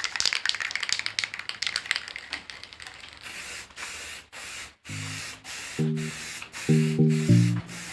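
Aerosol can of Bosny silver spray paint, first a fast rattling from the mixing ball as the can is shaken, then about three seconds in short hissing bursts of spray paint being applied. Background music with plucked notes comes in about five seconds in.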